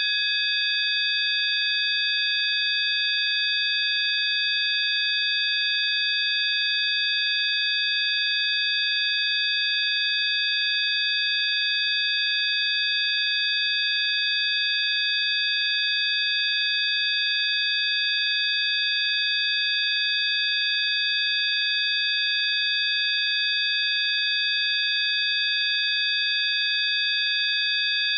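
Several steady, high-pitched electronic sine tones sounding together as one unchanging chord, with a faint hiss underneath: a generated healing-frequency tone track.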